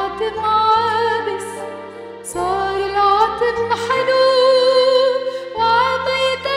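A woman singing an Arabic Christmas song into a microphone, with long held notes and vibrato, over instrumental accompaniment with sustained low bass notes.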